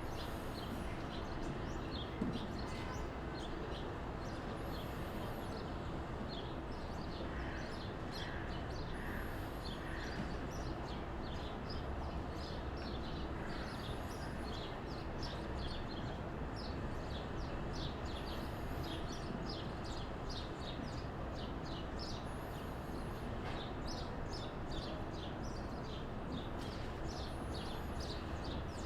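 Small birds chirping rapidly and repeatedly over a steady outdoor background noise, with a thin, very high call coming back every four seconds or so.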